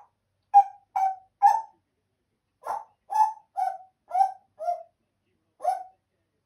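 African grey parrot giving a string of short hoot-like calls, each dropping slightly in pitch: three in quick succession, a pause, a run of six, then one more.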